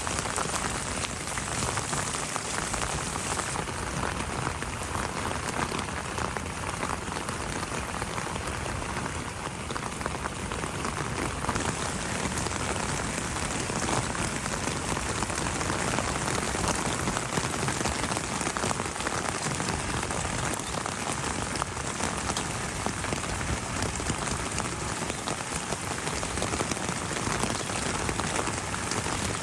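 Steady rain falling, a dense, even patter of drops, its hiss a little duller for several seconds near the start.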